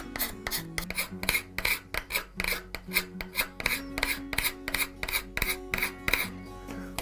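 Steel scraper blade being drawn quickly and repeatedly along a wooden drill handle, scraping off the old finish in short rasping strokes, about four to five a second, with soft background music underneath.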